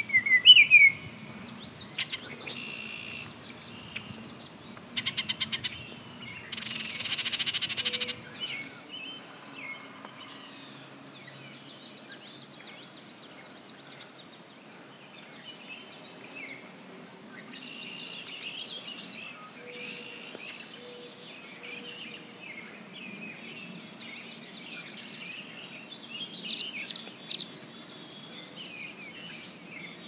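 Several songbirds singing and calling together, with a loud whistled phrase about half a second in, a quick trill around five seconds, a buzzy call near seven seconds and a run of evenly spaced ticks after it.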